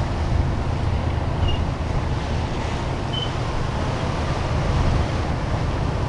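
Wind buffeting the microphone and choppy water rushing past the hull of a moving boat, over the steady low drone of its engine.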